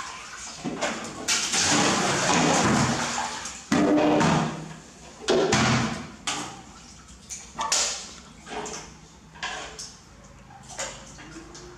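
Water from a large aluminium washbasin being tipped out onto a tiled bathroom floor: a heavy rushing splash for about two seconds, then two shorter gushes. After that come smaller separate splashes and knocks.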